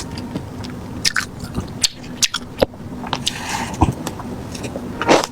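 Ice being bitten and chewed close to the microphone, a run of sharp, irregular crunches.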